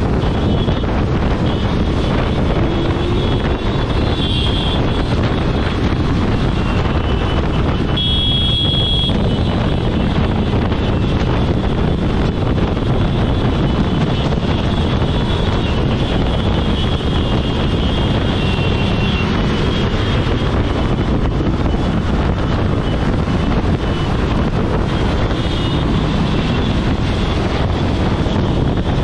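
Wind rushing over a motorcycle-mounted microphone at riding speed, mixed with the steady drone of motorcycle engines in a large group ride. A brief high tone sounds about eight seconds in.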